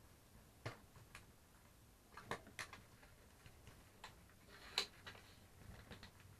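Faint, irregular plastic clicks and taps from shower-curtain pins being pushed through small plastic pieces at the curtain's hem and twisted to lock. The loudest click comes just before five seconds in.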